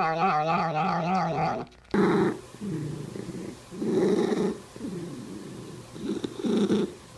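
A domestic cat's long, wavering yowl that cuts off abruptly about two seconds in, followed by the low rumbling of a cat in short pulses about once a second.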